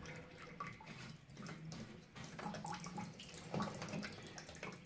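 Faint water trickling and dribbling from a partly undone radiator fitting as the radiator drains.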